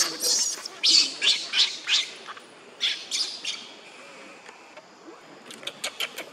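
Newborn baby macaque screaming: a rapid string of shrill, high cries, about three a second, fading after about three and a half seconds, with a few short sharp calls near the end. These are the distress cries of an infant left on the ground without its mother.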